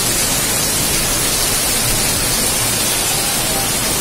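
Heavy monsoon rain pouring down, a steady loud hiss.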